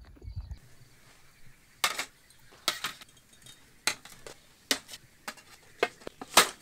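About seven sharp clicks of hard objects knocking together at uneven intervals, the last one the loudest.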